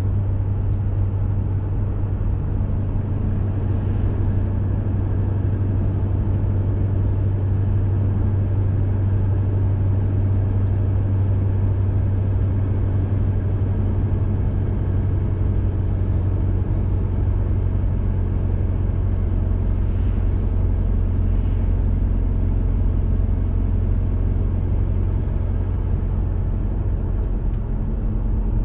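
Car driving at a steady speed, heard from inside the cabin: a continuous low drone of engine and tyre noise on a paved road, dropping slightly lower in pitch near the end.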